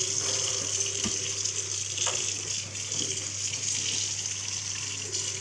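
Tap water running into a sink and splashing over a dead chicken as it is rubbed clean by hand, with a couple of light knocks about one and two seconds in.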